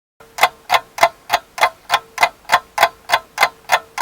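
Ticking-clock sound effect of a countdown timer, starting suddenly out of silence and running evenly at about three ticks a second over a faint steady tone, as a 30-minute countdown reaches its final seconds.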